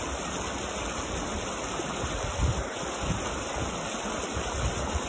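Shallow creek running over rocks: a steady rush of water with a few brief low swells.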